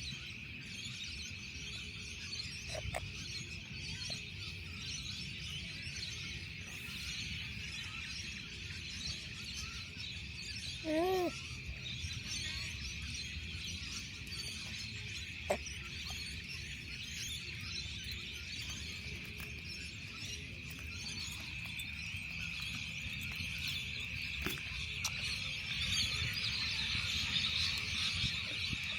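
Outdoor park ambience: a steady high-pitched drone with many faint chirps over a low rumble. A short pitched call rises and falls about eleven seconds in, and a single sharp click comes a few seconds later.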